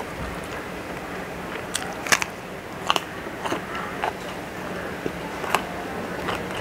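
Close-up crunching as a person bites into and chews a piece of crisp raw vegetable: a handful of sharp, separate crunches, the loudest about two seconds in. A faint steady hum runs underneath.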